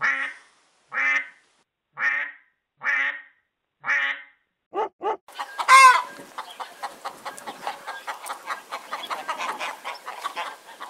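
Five duck-like quacks, one about every second, then two short ones. About six seconds in comes a louder squawk, followed by a dense run of rapid, chattering bird-like calls.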